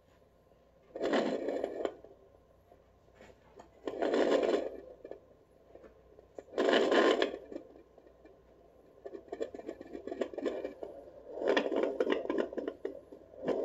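Scratchy, swishing bursts of noise from a handheld fetal doppler's speaker as its probe is slid over a pregnant dog's belly, several times, each a second or less. The bursts run into a longer rough stretch near the end.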